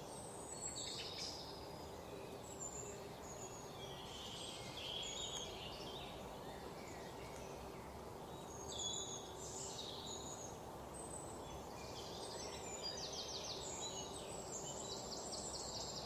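Forest ambience: many short bird calls and chirps from several birds over a steady background hiss, with a couple of fast rattling trills near the end.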